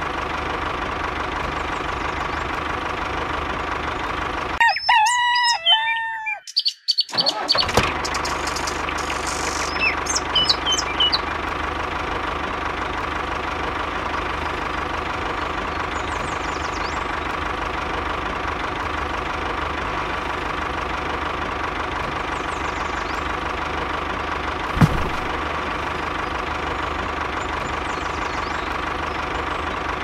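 Tractor engine running steadily. About five seconds in the engine sound cuts out while a rooster crows, with a few short chirps after, and a single sharp knock comes near the end.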